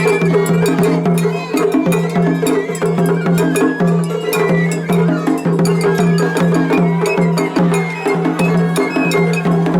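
Japanese festival hayashi music from two groups playing against each other at once in a seri-ai: rapid drum strokes and clanging metal hand gongs under shrill bamboo flute phrases, dense and continuous.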